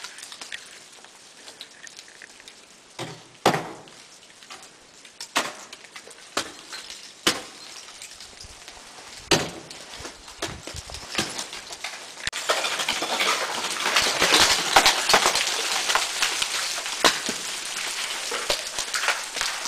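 Ice axe picks and crampon points striking and breaking into frozen waterfall ice, a string of sharp separate blows. About two-thirds of the way through it turns into a denser run of crackling and scraping ice.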